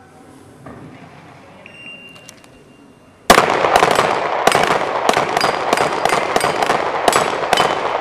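Rapid handgun fire, about three shots a second, starting suddenly a little over three seconds in, as steel plate targets are shot down.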